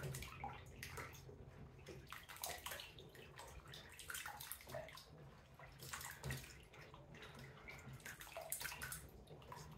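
Water sloshing and splashing faintly as a hand stirs and presses pieces of watermelon rind down into a clear plastic water-dispenser tank, in scattered small splashes.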